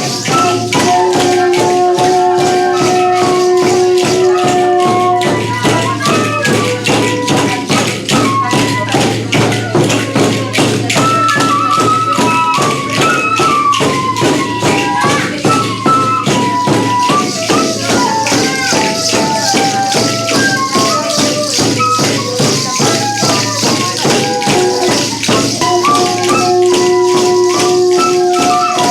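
Kamentsá flute music: flutes play a stepping melody of the carnival-eve repertoire, with held notes at the start and near the end, over a fast, steady shaken jingling percussion.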